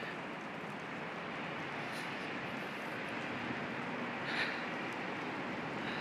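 Steady city street ambience: a constant hum of road traffic.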